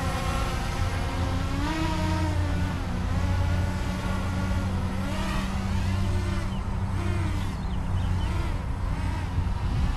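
AxisFlying KOLAS 6 FPV quadcopter on 6-inch propellers flying, its motors and props whining. The pitch rises and falls again and again as the throttle changes.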